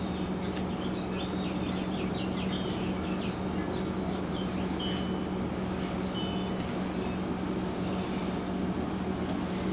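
A steady low hum of room or shop noise, with faint bird chirps twittering in clusters from about one to six seconds in.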